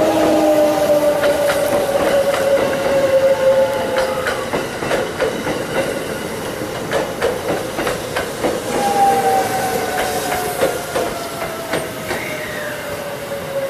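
Hakutaka limited express electric train rolling slowly through the station: its motor whine falls gradually in pitch as it slows, twice over, while the wheels clatter and click over rail joints and points.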